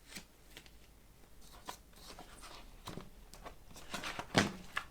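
Paper picture cards being handled and shuffled: scattered rustles and light taps, with a louder knock near the end.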